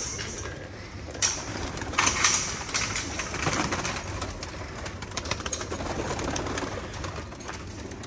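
Pigeons cooing in a loft, with a few short sharp rustles or clacks about one, two and three and a half seconds in.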